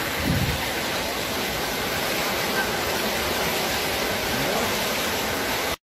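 Floodwater rushing down a street as a steady, even rush of water, cut off suddenly near the end.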